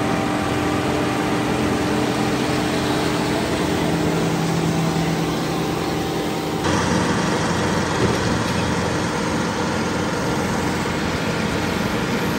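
Diesel farm tractor running steadily under load as it pulls a round baler through the windrows. The sound changes abruptly about halfway through and cuts off at the end.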